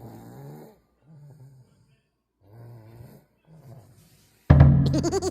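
Short snore-like grunting sounds repeated four times, about a second apart: someone imitating snoring. About four and a half seconds in, loud laughter breaks out in quick pulses.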